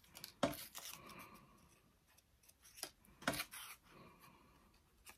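A few short, crisp rustles and clicks from paper petals and craft tools being handled, in three brief clusters over quiet room tone.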